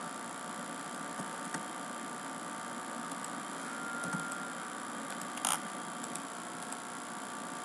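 Steady background hiss and faint hum of a desk recording setup, with a single sharp click about five and a half seconds in.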